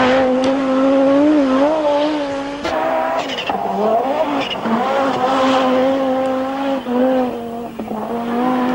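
Audi Quattro Group B rally car's turbocharged five-cylinder engine at high revs, its note rising and falling with throttle and gear changes. There is a sudden change about three seconds in, then a quick rising rev.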